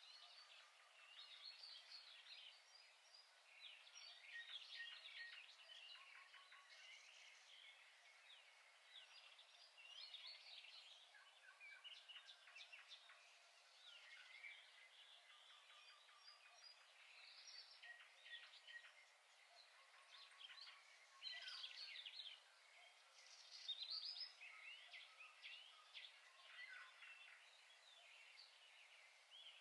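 Faint birds chirping and twittering, many short calls scattered throughout over a low background hiss.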